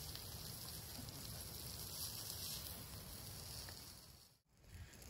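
Food sizzling on a portable camp grill: a faint, steady hiss that fades out about four seconds in.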